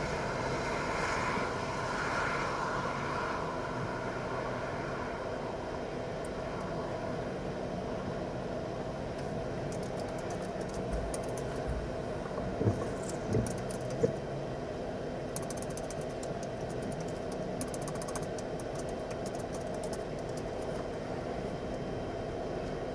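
A steady rumbling hiss of outdoor background noise, with faint crackles and three short knocks a little over halfway through.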